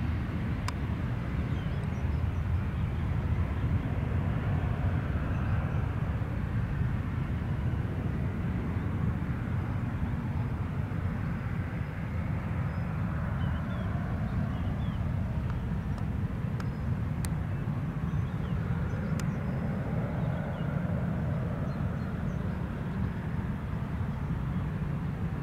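Low, steady rumble of a Cessna Citation CJ2+ business jet's two rear-mounted Williams FJ44 turbofans as the jet climbs away after takeoff.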